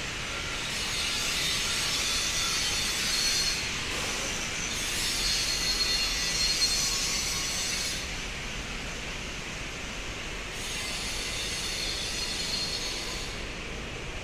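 Steady rush of city street traffic, with a faint high-pitched whine coming and going.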